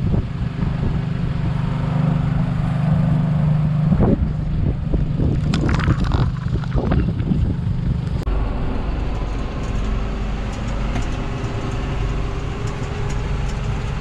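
Tractor pulling a John Deere corn planter through a field: engine running with knocks and clanks from the planter for the first eight seconds. About eight seconds in it changes abruptly to the steadier engine drone heard inside the tractor cab.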